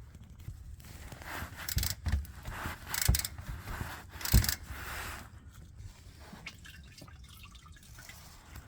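An oil filter being loosened and taken off with an oil filter wrench: a few sharp metal clanks and scrapes over the first four or five seconds, with oil dripping and trickling out. It goes quieter after about five seconds.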